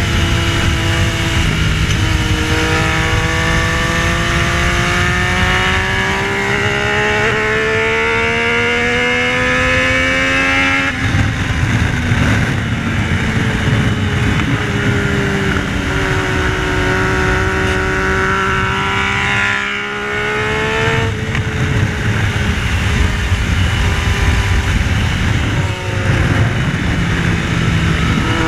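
Yamaha Tracer 900's three-cylinder engine at speed, its pitch climbing steadily for about nine seconds, dropping sharply about eleven seconds in, then holding high with a brief dip near twenty seconds, under heavy wind rush.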